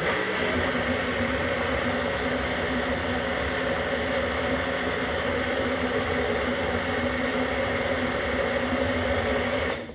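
Countertop blender motor running steadily at one speed while blending a smoothie. It starts suddenly and cuts off suddenly near the end.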